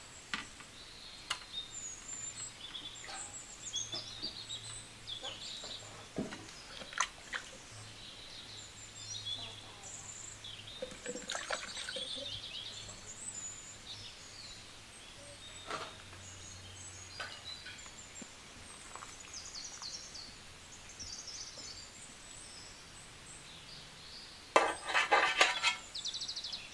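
Birds chirping and calling in the background, with scattered sharp clinks of a metal skimmer against a metal cooking pot. Near the end comes a louder clatter of the skimmer scraping and knocking in a metal pan of boiled taro corms.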